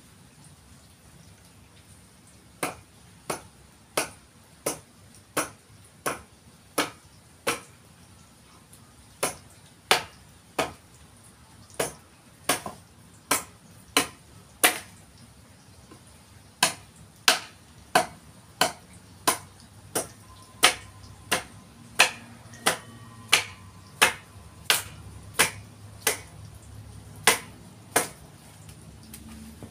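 A hand tool striking the wood of a forest red gum didgeridoo while it is shaped, about one and a half sharp blows a second, with two short pauses.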